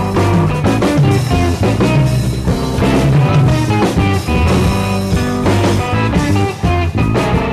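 Background rock music with electric guitar and drums.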